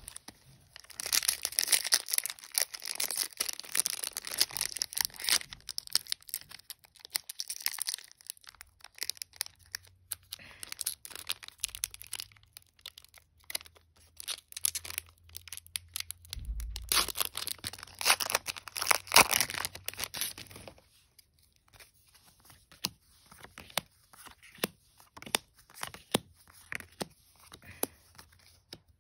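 Commander Legends booster pack wrapper being torn open and crinkled, in two long spells of crackly rustling, the second ending about two-thirds of the way through. Lighter clicks of cards being handled and laid down follow.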